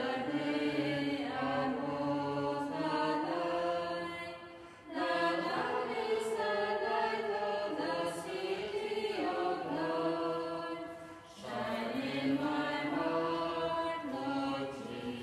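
A small group of nuns singing a hymn together, in long sustained phrases with short breaks for breath about 5 and 11 seconds in.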